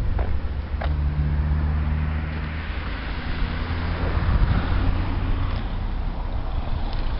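A car passing on the road: a low engine hum and tyre hiss swell to a peak a few seconds in, then ease away. Wind rumbles on the microphone throughout.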